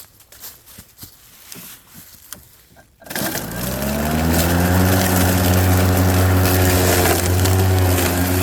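Ryobi 40 V battery lawn mower starting up: a few light clicks, then about three seconds in the motor and blade spin up with a rising hum and settle into a loud, steady hum.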